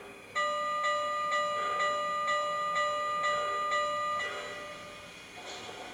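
Multi-chime steam whistle held in one long blast of about four seconds, from the digital sound system of an MTH HO-scale GS-4 4-8-4 locomotive model. Steady chuffing runs beneath it at about two beats a second.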